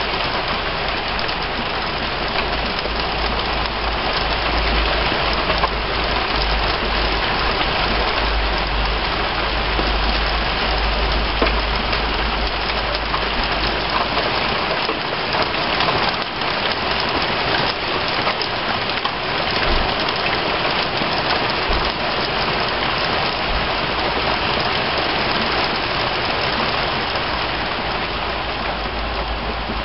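Heavy rain falling steadily, a dense even hiss of drops pattering on surfaces. A low rumble runs underneath through roughly the first half.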